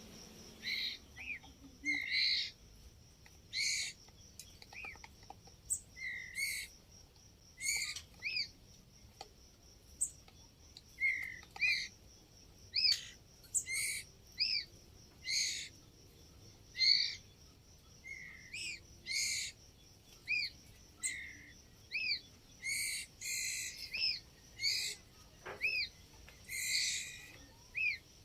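Young white-rumped shama giving short, repeated calls, each a quick curved note with a sharp click-like edge, coming irregularly about once or twice a second. A thin, steady high tone runs underneath.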